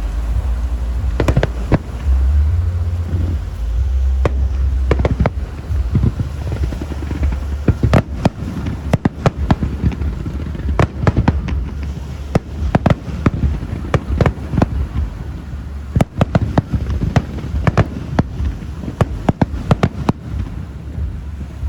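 Fireworks display: a long, irregular series of sharp aerial bangs, few at first and coming thick and fast from about a third of the way in, over a continuous low rumble.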